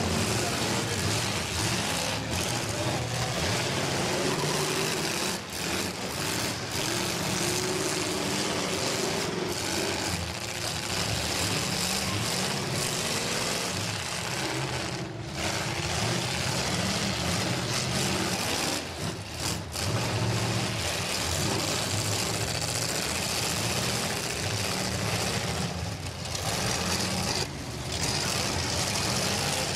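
Several demolition derby cars' engines running and revving together in a dense, steady mix of engine noise.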